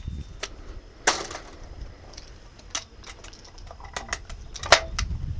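Scattered light clicks and knocks of a shotgun being handled and reloaded between pairs, with a sharper click near the end.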